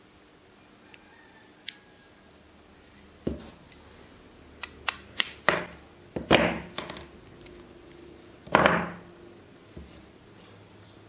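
Pliers clicking and knocking against small plastic and rubber syringe parts, and tools being set down on a hard work surface: a scattered run of sharp clicks, thickest in the middle, with the loudest knock about eight and a half seconds in.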